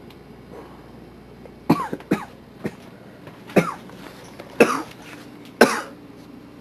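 A person coughing in a series of about six separate coughs spread over a few seconds.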